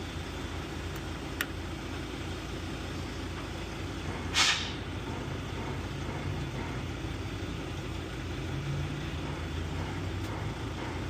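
Steady low hum of an idling vehicle engine, with one short hiss about four seconds in.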